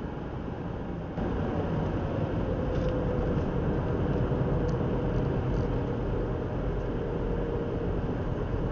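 Car driving on an open road: steady engine and tyre road noise heard from inside the car, getting louder about a second in.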